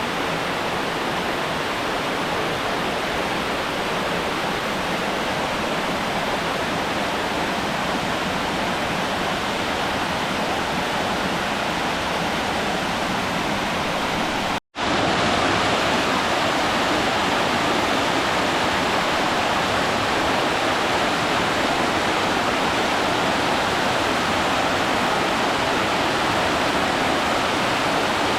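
A tall waterfall pouring down: a steady rush of falling water. It cuts out for an instant about halfway through, then carries on slightly louder.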